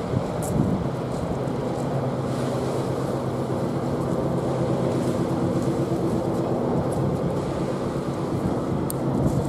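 Steady low drone of the passenger ferry Barfleur's engines as the ship sails past, over the rush of wind and water.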